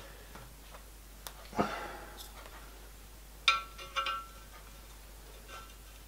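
Sintered bronze bush being fitted by hand into the bore of a steel box housing: two short ringing metal clinks about half a second apart, past the middle. A brief dull handling sound comes about a second and a half in.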